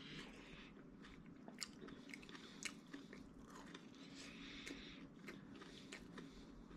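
Faint close-up chewing: a person eating, with irregular small clicks and mouth sounds.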